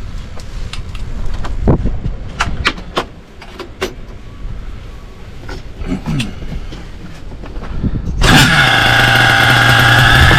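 A low rumble with scattered clicks and knocks, then, about eight seconds in, the HPI Savage X 4.6's nitro engine suddenly starts up and runs loud and steady at a fast idle.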